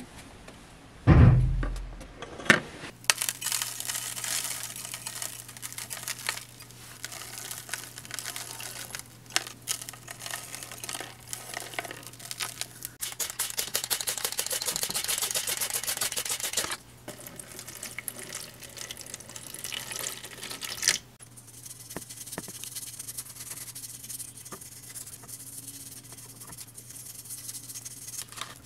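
Die-cast model car body parts set down in a plastic tub with a heavy thud about a second in, then a long hissing, crackling pour as powdered detergent runs over the metal, loudest in the middle. A low steady hum sits underneath.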